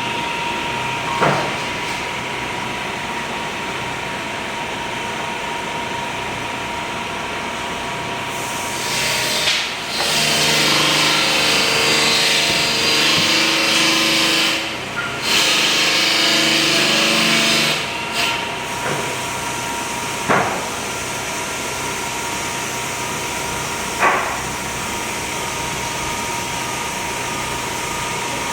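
Power tool running with a steady whine while working wood. From about eight to eighteen seconds it turns louder and rougher as it cuts into the wood, with a short break in the middle. A few brief sharp blips come near the start and twice later on.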